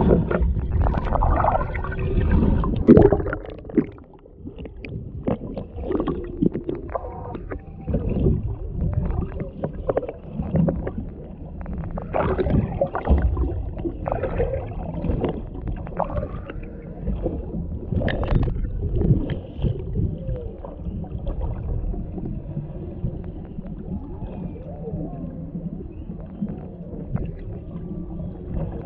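Humpback whale song recorded underwater through a small camera microphone: moans and whoops that rise and fall in pitch, over a steady low water rumble with scattered clicks.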